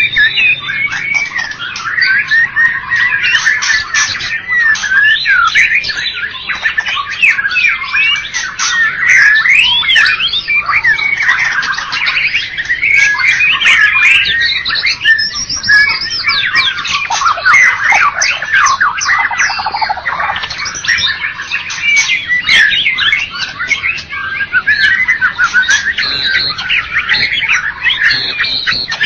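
White-rumped shama (murai batu) singing a loud, unbroken song of fast, varied whistles, trills and harsh notes.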